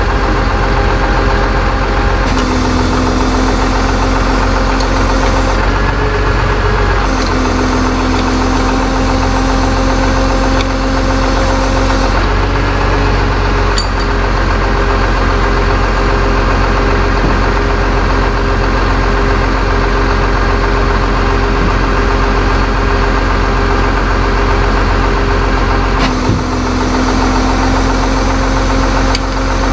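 Tow truck engine running steadily. Three times, once about two seconds in, again from about seven to twelve seconds, and again near the end, a higher steady tone and hiss join it as the truck's hydraulics are worked from the control levers.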